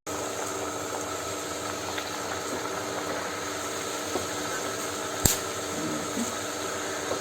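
Thattai (rice-flour discs) frying in hot oil, a steady sizzle with a steady hum underneath, and one sharp click about five seconds in.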